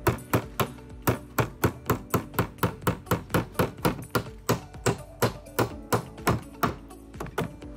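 Claw hammer striking in a fast, steady run of blows, nearly four a second, stopping shortly before the end.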